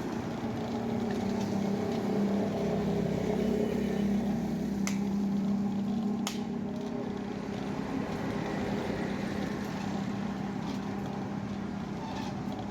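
A steady motor hum, with two sharp knocks about a second and a half apart near the middle.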